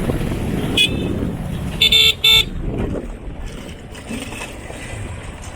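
A vehicle horn gives two short, loud beeps about two seconds in, over the steady rumble of a moving vehicle. A brief high chirp sounds just before a second in.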